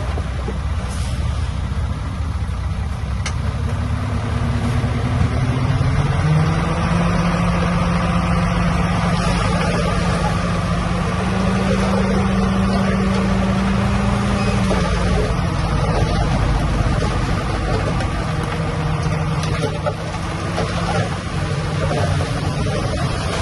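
Bulldozer's diesel engine running hard, its pitch climbing a few seconds in, holding high, then dropping back and steadying in the second half.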